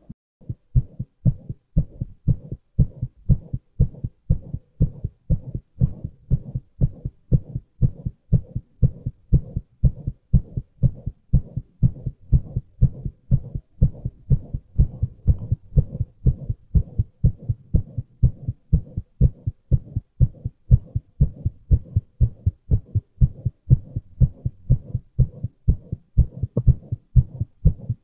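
A man's heartbeat: a steady, regular rhythm of soft low thumps.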